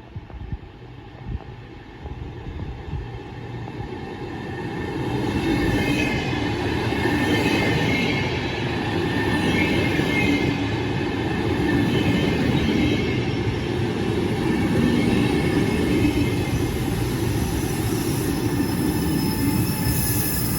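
A train running through the station, its wheels rumbling on the rails with some high wheel squeal; it grows louder about four seconds in and stays loud.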